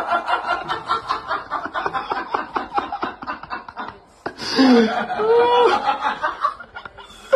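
A person laughing in quick repeated bursts. After a sudden break about four seconds in, a voice makes drawn-out notes that bend up and down.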